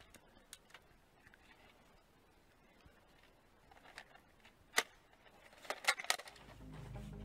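Scattered light plastic clicks from a Nerf dart blaster being handled and worked, with a sharper click about two-thirds of the way through and a quick cluster of clicks just after. Music fades in near the end.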